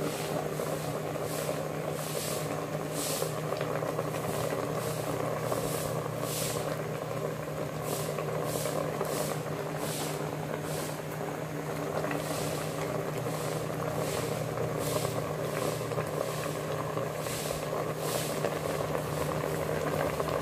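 Clay pot of fish simmering on a stove: a steady low hum with irregular soft hissing pulses about once a second.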